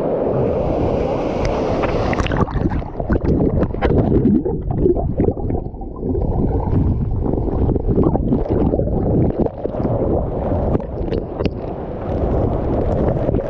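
Steady rushing of a waterfall, dominated by low rumble and heavy wind buffeting on the microphone, with irregular crackles and knocks throughout.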